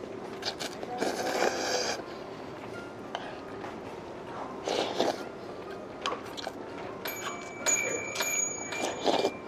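Close-up eating sounds: a person slurping noodles and chewing from a bowl, in a few short bursts. Near the end a high, bell-like ringing tone joins in.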